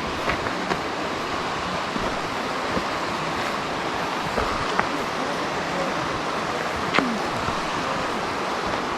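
Steady rushing of flowing water, with a few short clicks and knocks about a second in, near the middle and about two-thirds of the way through.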